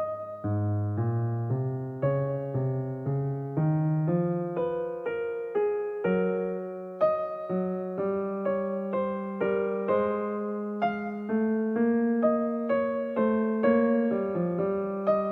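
Background music: a gentle piano or electric piano tune playing a steady run of notes.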